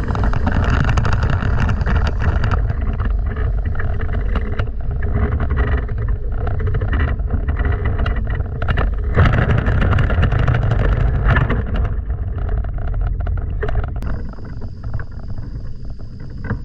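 Wind buffeting the microphone of a camera mounted on a hang glider, a loud, steady rumble and hiss broken by many short knocks.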